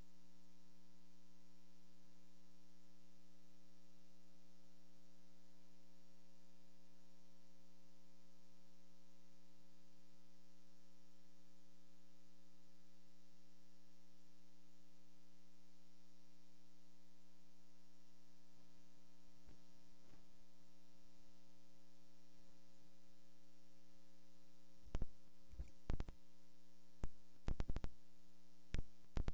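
Steady electrical mains hum, a low buzz made of several fixed tones. In the last few seconds it is broken by a handful of sharp clicks and knocks.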